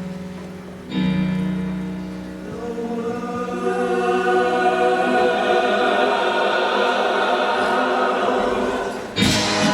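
Show choir singing a held chord that swells as more voices come in, building to full volume. Near the end a sudden loud accent hits.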